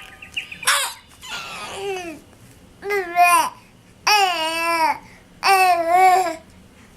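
A voice making a series of about five drawn-out, pitched calls, each bending up and then down in pitch. The last three are the longest and loudest.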